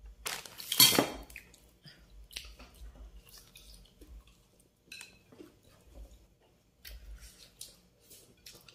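People eating with their hands at a table: faint chewing and mouth sounds with scattered light clicks of plates and bowls, and one brief louder noisy sound just under a second in.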